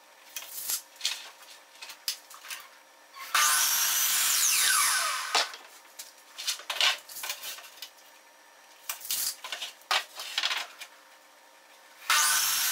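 Craftsman 12-inch sliding miter saw crosscutting 1x6 pine boards: the motor starts suddenly, cuts through the board and winds down with a falling whine, twice, the second cut near the end. In between, knocks and clicks of the boards being handled and positioned on the saw table.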